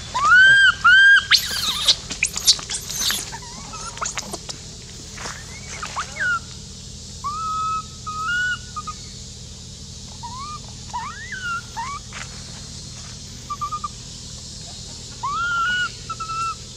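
Infant long-tailed macaque crying. Loud, high-pitched squealing screams fill the first three seconds, then softer whistle-like cries come on and off.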